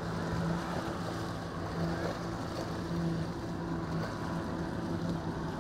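Motorboat engine running at a steady drone, with rushing water and wind noise on the microphone.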